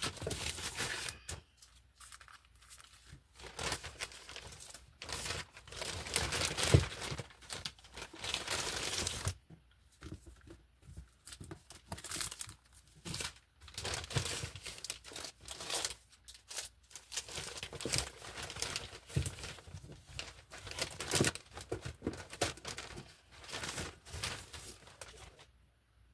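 Plastic packaging, grey poly mailer bags and zip-lock bags, rustling and crinkling as it is handled and moved. It comes in irregular bursts, with a longer run of several seconds about a quarter of the way in.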